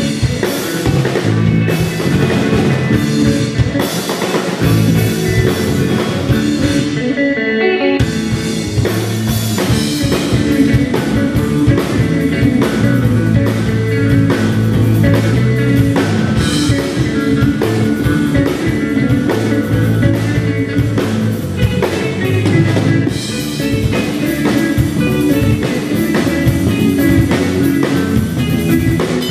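Instrumental math-rock band playing live: two electric guitars, electric bass and drum kit. About eight seconds in, the cymbals drop away for a moment before the full band comes back in.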